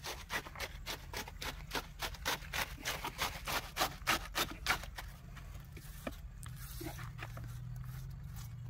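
Quick repeated scraping strokes, about four a second, thinning out after about five seconds: a small trowel smoothing the wet concrete on top of a freshly cast concrete ring. A faint low hum comes in near the end.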